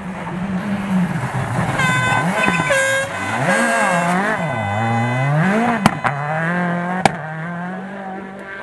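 Rally car engine revving hard, its pitch rising and falling several times through gear changes as the car passes. An air horn sounds in a few short blasts about two seconds in, and there are two sharp bangs near the six- and seven-second marks.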